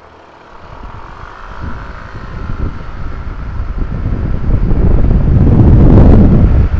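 Yamaha Mio M3 scooter with an upgraded CVT accelerating hard from a standing start. Wind on the camera microphone grows steadily louder with speed and covers most of the engine, with a faint steady high tone underneath.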